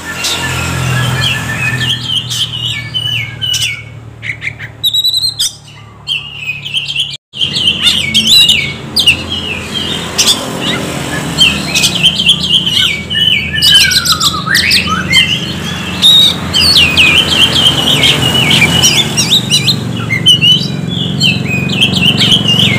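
Oriental magpie-robin (kacer) singing loudly in fast, chattering runs of high notes, broken off briefly about seven seconds in. Near halfway it gives a whistled sweep that falls and then rises again, over a steady low background rumble.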